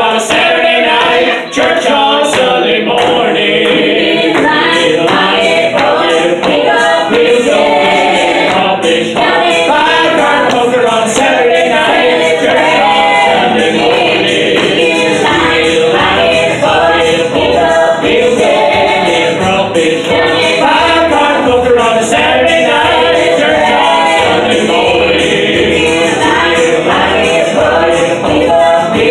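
A small group of voices singing together in harmony, amplified through a PA, with a steady rhythmic beat underneath that fills out about halfway through.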